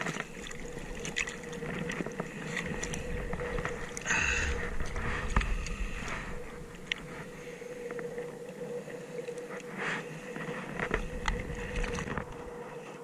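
Sea water lapping and sloshing around a small fishing craft, with wind on the microphone and scattered clicks of fishing gear being handled. A louder rush comes about four seconds in.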